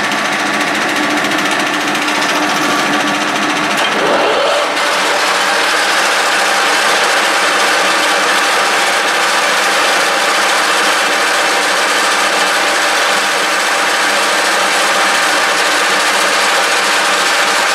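1K62 screw-cutting lathe running steadily under power while the bore of a PTFE bushing is enlarged toward 17 mm. About four seconds in the sound changes: a low steady hum drops out and a brighter hiss takes over.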